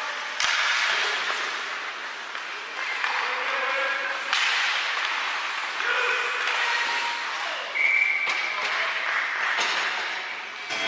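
Ice hockey play heard in a rink: skates scraping the ice, with sharp knocks of sticks and puck, twice loudly, over the hubbub of spectators. A short high whistle blows about eight seconds in.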